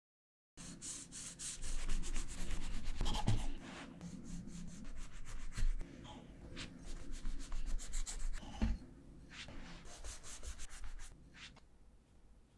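Knife sawing through the crusts of a stack of white sandwich bread on a wooden cutting board: quick repeated rasping strokes starting about half a second in, with a few louder knocks. The strokes thin out near the end.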